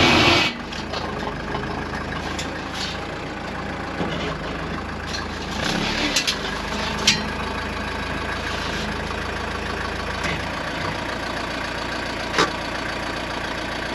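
Mercedes 190D diesel engine idling steadily, with a few sharp knocks or clicks over the top, the loudest about halfway through and near the end.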